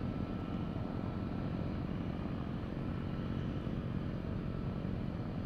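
Mooney M20 single-engine airplane's four-cylinder engine running steadily at low landing power as it flares over the runway, heard as a low drone with a faint steady whine above it.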